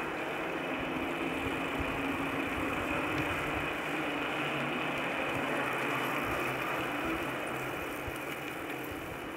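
Steady wind and rolling noise from a bicycle moving along a paved road, with wind buffeting the microphone.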